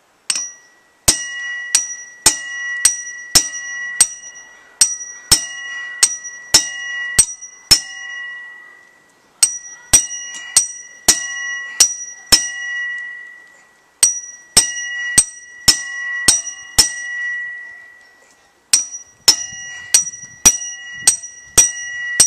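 A claw hammer strikes a hand impact driver with a 6 mm hex bit, set in a factory-Loctited brake rotor bolt on a 1983 Yamaha XJ900 front wheel. The metallic blows come about two a second, in runs of several with short pauses between, and each one leaves a ringing tone. The bolt is stubborn and has not yet come loose.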